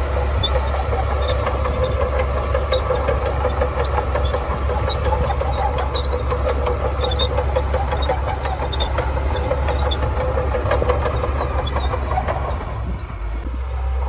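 Shantui DH17C2 bulldozer's diesel engine running steadily under load, with the rapid clatter of its steel tracks; the sound eases briefly near the end.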